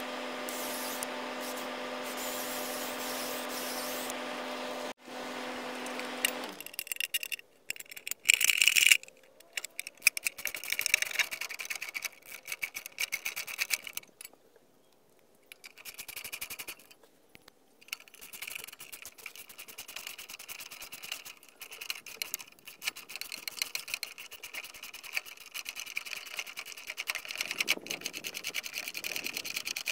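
A power drill runs steadily while drilling into a wooden post, dropping out briefly about five seconds in and stopping about six and a half seconds in. Then come irregular clicks, knocks and rattles as a metal electrical box is handled and fitted against the post, the loudest clatter about eight seconds in.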